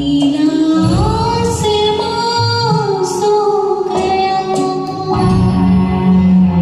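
A woman singing a long, held melodic line that slides between notes, over an instrumental backing track with a few light percussion ticks.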